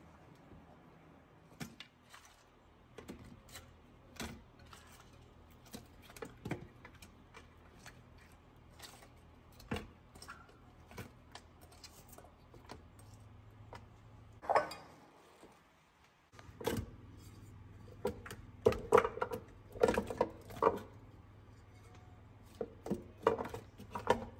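Onion pieces and carrot chunks tipped from a bowl and set by hand into a stainless steel slow cooker insert: irregular light clicks and taps of vegetables and bowl against the metal, with several louder knocks in the second half.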